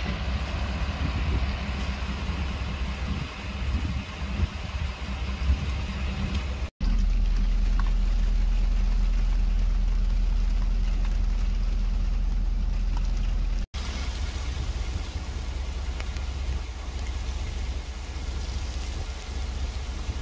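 Outdoor ambience: a steady low rumble with a light hiss, changing abruptly twice. The middle stretch holds a louder, deeper steady rumble.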